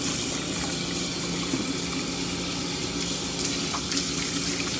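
Steady hiss of water spraying from a hand-held bathing hose onto a boxer's wet short coat and running off into the tub as the dog is rinsed.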